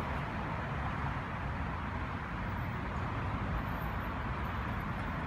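Steady outdoor background noise: a fluttering low rumble under an even hiss, with no distinct events.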